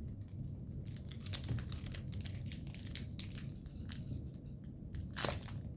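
Crinkling and rustling of foil Pokémon booster pack wrappers being handled, a run of small quick crackles with a louder rustle about five seconds in.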